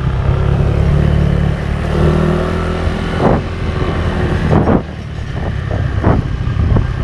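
Yamaha Mio Sporty scooter's engine running while riding, its note rising about two seconds in and easing off near five seconds, with a few short thumps.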